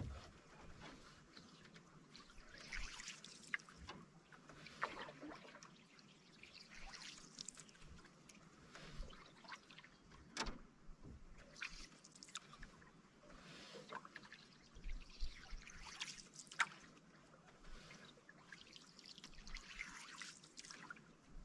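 Faint canoe paddle strokes: water swirling and dripping off the blade, a stroke about every two seconds, with one sharp knock about ten seconds in.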